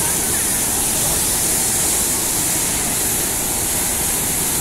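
Flash-flooded Busu River rushing steadily beneath a steel bridge, fast brown floodwater churning in rapids.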